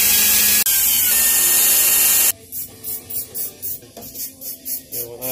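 Drill press running and its bit grinding through a metal jar lid into the wooden block beneath, a loud whirring grind that dips briefly about half a second in and stops a little after two seconds. It is followed by quieter, even tapping, about three light taps a second.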